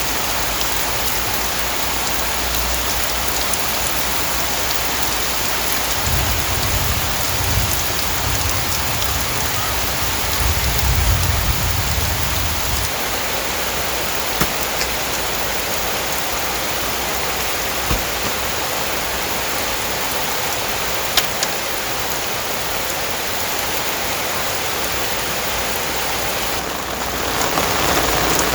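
Heavy rain pouring down steadily. Low rumbles of thunder swell about six to thirteen seconds in, and another starts building near the end.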